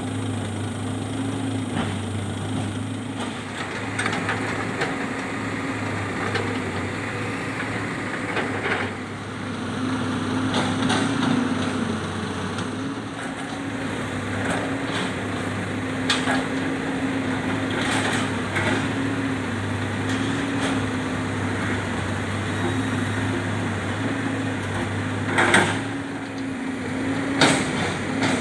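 Diesel engines of logging trucks and a log-loading excavator running steadily, with a few sharp knocks of rubber-wood logs being handled; the loudest two knocks come near the end.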